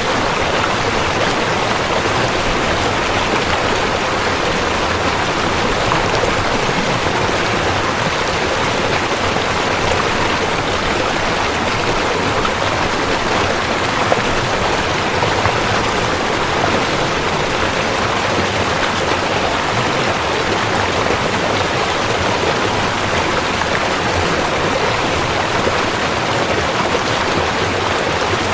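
Rushing river water, a steady, unbroken rush of flowing water.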